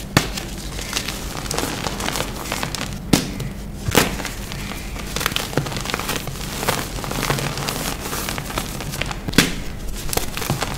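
Dry reformed gym chalk being snapped and crumbled in the hands: steady dusty crunching and crackling, broken by a few sharp snaps as the slabs break, the loudest near the start, around three and four seconds in, and near the end.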